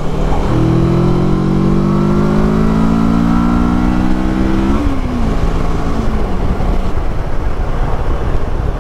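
Kawasaki Versys 650's parallel-twin engine pulling hard under acceleration, its pitch rising steadily for about four seconds, then dropping suddenly at an upshift and settling lower. Heavy wind rush over the microphone runs underneath.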